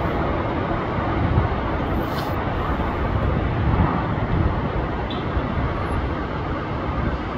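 Steady rumble of distant city road traffic, with no single vehicle standing out.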